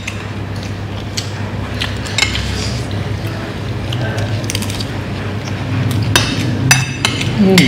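Cutlery and dishes clinking now and then during a meal, with a few sharp clinks close together near the end, over a steady low hum and faint background voices.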